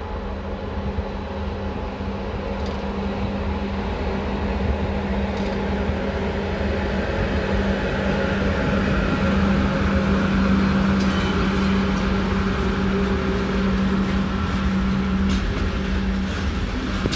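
A train approaching and running past a level crossing: a steady low engine hum over rolling noise, growing louder over the first half and then holding.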